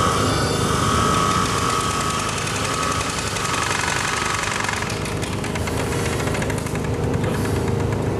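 A steady, dense mechanical rattle and drone, with a high tone that comes and goes during the first few seconds.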